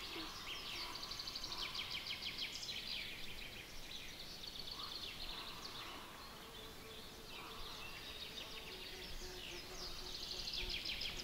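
Summer outdoor ambience: insects chirring in repeated trains of quick, even ticks, with a few birds calling, over a low steady background hiss.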